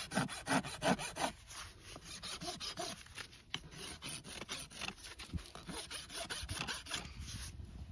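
A farrier's rasp scraping across a horse's hoof in a series of short, irregular strokes: finishing touch-ups on the trimmed hoof wall.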